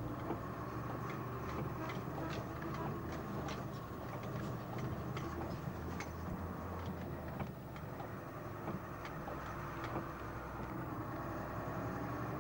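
Milk tanker lorry's diesel engine running steadily, heard from inside the cab, with scattered light clicks and rattles in the first half.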